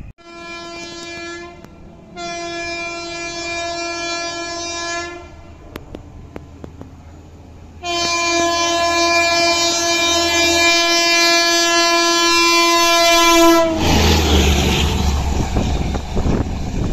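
Electric train's horn: a short blast, a blast of about three seconds, then a long blast of nearly six seconds that cuts off sharply, each one steady in pitch. After it, a loud rushing rumble of the train running on the track.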